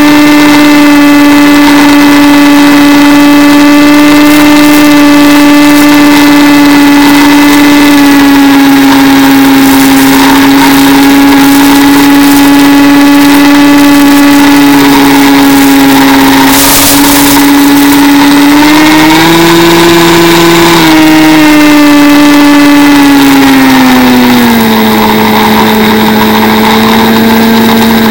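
Electric motor and propeller of a Mini Skywalker RC plane whining at a steady pitch, heard from on board. About two-thirds through the pitch rises briefly with more throttle, then near the end it drops to a lower pitch as the throttle is eased back; a short burst of hiss comes a little past halfway.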